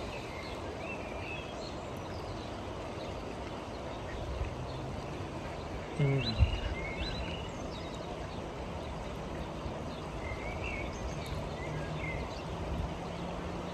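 Outdoor ambience: a steady background rush with scattered short bird chirps, and a brief low sound about six seconds in.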